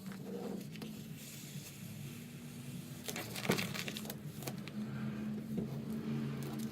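Hands working a vinyl graphic, such as a squeegee pressing air bubbles out from under the vinyl, giving irregular rubbing, crinkling and light knocking noises. They are busiest about three seconds in, over a steady low hum.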